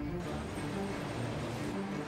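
Background music with sustained low notes, over a steady noise bed.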